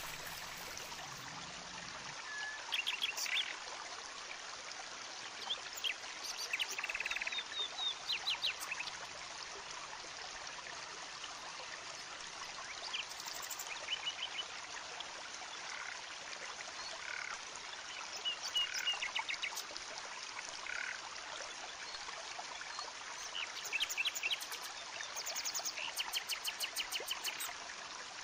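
Steady rush of a forest stream, with several bursts of quick, rapid chirping calls from small wild animals.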